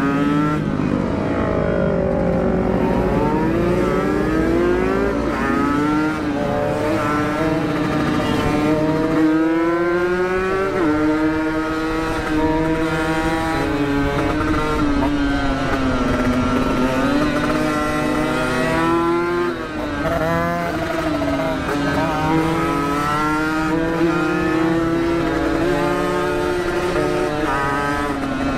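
Motorcycle engine with an aftermarket exhaust, revving up through the gears while riding; its pitch climbs and falls back at each gear change, over and over.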